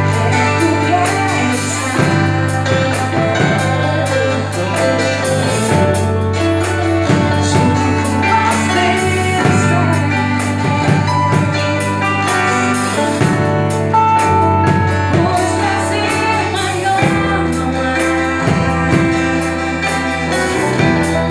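A gospel worship group playing a song, with a steady bass line and drums under the music and voices singing along; the bass pattern changes about seventeen seconds in.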